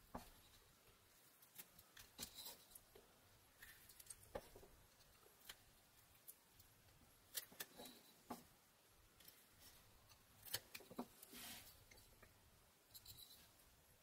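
Rough Rider pocket knife blade making small slicing cuts in a pine carving: faint, scattered scrapes and ticks at irregular intervals, with one slightly longer slice near the end.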